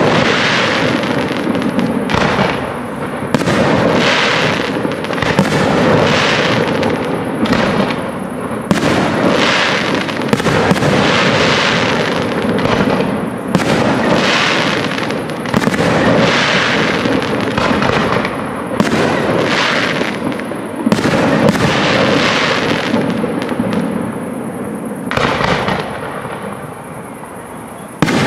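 Aerial fireworks display: shells launching and bursting in quick succession, about one bang a second with echoing tails, thinning out in the last few seconds apart from one more loud bang.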